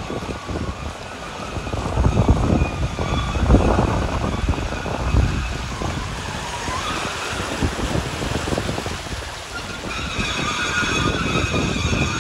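Mitsubishi Pajero SUV driving slowly through floodwater, its tyres churning and pushing a sloshing wake, with wind buffeting the microphone. The rush of water and engine is loudest a few seconds in as it passes close, and a faint high whine joins near the end.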